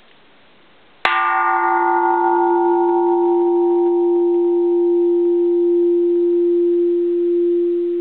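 Bronze Japanese Buddhist temple bell, made in 1625, struck once about a second in. A sharp strike is followed by a long ring: the higher overtones die away within a few seconds while one low hum tone sustains.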